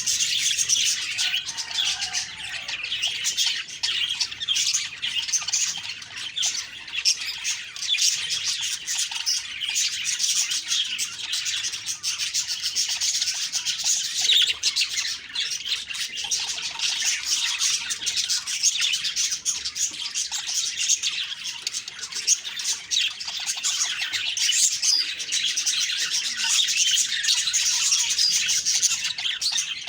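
Budgies (budgerigars) chattering and chirping, a dense continuous warble of quick high notes with occasional squawks.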